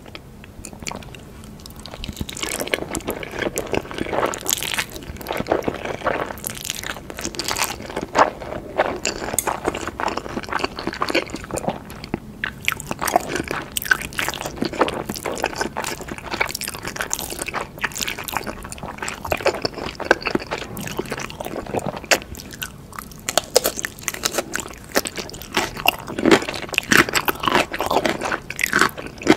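Close-miked eating sounds: wet chewing, biting and crunching of black bean sauce noodles and sauce-glazed fried chicken, dense and irregular, quieter for the first two seconds.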